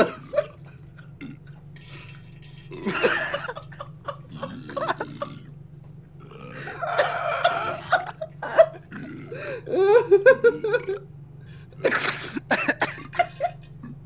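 Recorded diarrhea and fart sound effects played through a Discord music bot: about five separate bursts, each a second or two long, over a steady low hum.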